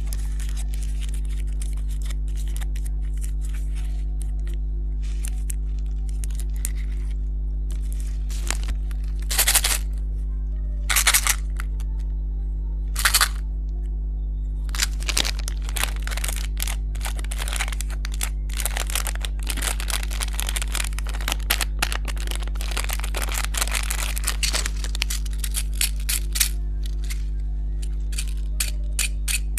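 Plastic candy wrappers crinkling and tearing as they are opened, in short crackly bursts that grow dense and continuous partway through, over a constant low electrical hum.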